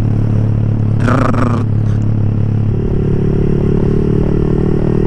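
Yamaha R15 V3's 155 cc single-cylinder engine with an open exhaust pipe, running steadily under way, heard from the rider's seat. A little over halfway through, the engine note changes and a higher steady tone joins it.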